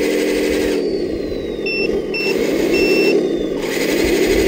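Radio-controlled heavy truck running under throttle, its motor note steady, then dipping and rising in pitch twice as the throttle changes. A few short high beeps sound in the middle.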